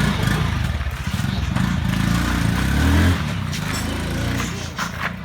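Honda motorcycle engine running as the bike sets off on a test ride, loudest about three seconds in, then fading as it moves away.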